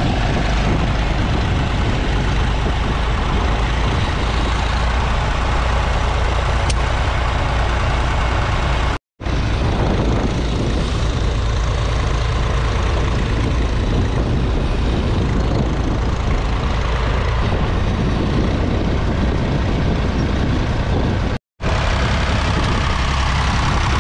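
Massey Ferguson 35's three-cylinder diesel engine running steadily under load, pulling a two-furrow mounted plough through the soil. The sound cuts out for a split second twice.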